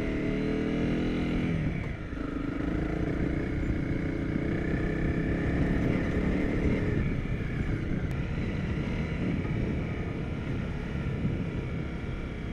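Honda CRF250 Rally's single-cylinder engine running under way on a dirt track. About two seconds in, its note shifts and dips briefly, then carries on mixed with wind noise on the microphone.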